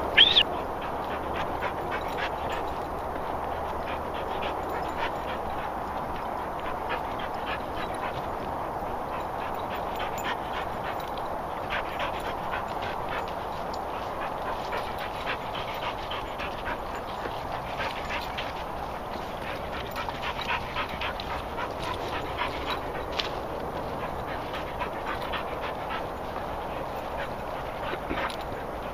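A pack of dogs on a walk, panting and moving through long grass, with a steady rustle of footsteps and many small ticks. Right at the start comes one short, loud, high squeal rising in pitch.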